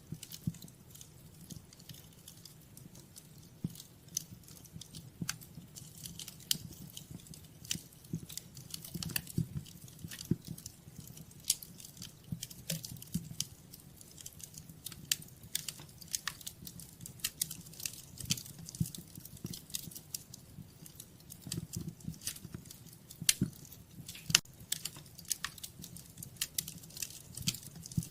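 Wood fire crackling in a fireplace: an irregular run of sharp pops and snaps over a steady low rumble.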